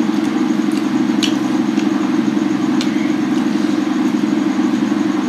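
A steady low hum like a motor running, with a couple of faint short clicks.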